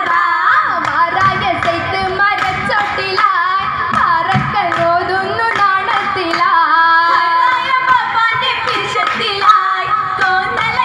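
Oppana: a Mappila song sung by a group of voices, with hand-claps in time with the song.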